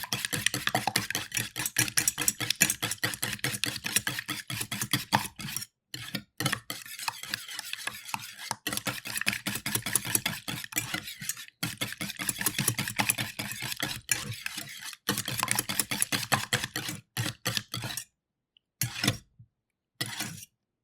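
Two eggs being beaten in a metal bowl: rapid, continuous clicking strokes of the utensil against the bowl with a few brief pauses. The strokes thin out and stop near the end, followed by a few last taps.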